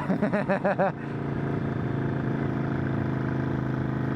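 Motorcycle engine running at a steady pitch while riding, an even drone with no revving.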